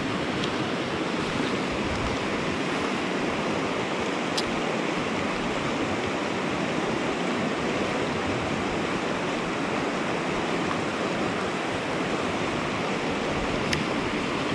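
Fast mountain river running over rocks: a steady rush of water. A couple of sharp ticks sound over it, one about four seconds in and one near the end.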